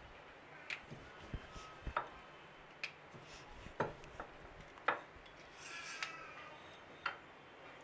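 About nine light, irregular knocks and taps as a wooden rolling pin and a plastic samosa mould are handled on a marble countertop, with a brief rub or scrape about six seconds in.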